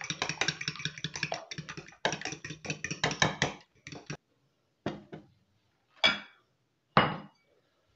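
Fork beating eggs in a bowl: fast, rhythmic clinking of the fork against the bowl, about five or six strokes a second, stopping about four seconds in. Then three separate knocks, the last two louder.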